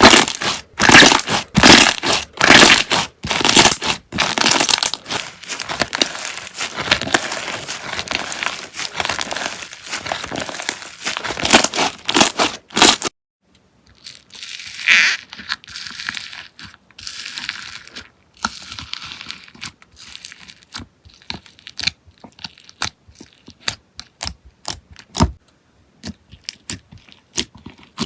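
Slime being squeezed and pressed by hands, making a dense run of crunching and crackling for the first half. After a short pause about halfway through, it goes on as sparser separate clicks and pops.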